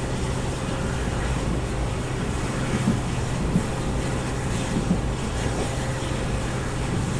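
Express train hauled by a WDP4D diesel-electric locomotive, heard in motion: a steady low drone and rumble, with a few light knocks around the middle.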